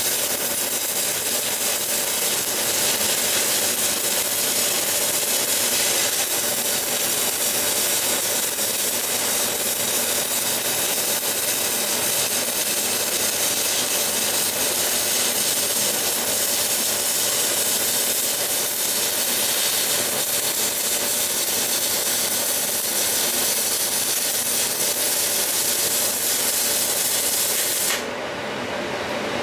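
Stick (MMA) welding arc from a Weldkar 1630 inverter welder: the electrode burns steadily along the seam in a constant hissing rush of noise. The arc stops near the end.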